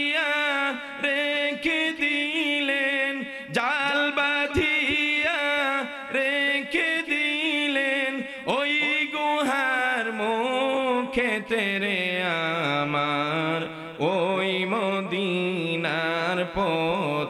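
A man singing a Bengali Islamic devotional song (gojol) solo into a microphone, drawing out long, ornamented notes with a wavering pitch. The melody drops lower about twelve seconds in and climbs again a couple of seconds later.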